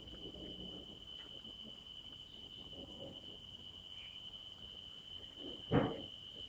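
Crickets trilling: one steady high-pitched tone, with a faint rapid ticking of another insect above it. A single sharp thump near the end.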